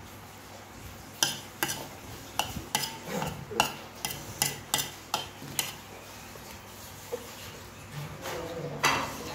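Metal spoon clinking and scraping against a ceramic plate: a run of about a dozen light clinks over four seconds, then a brief scrape near the end.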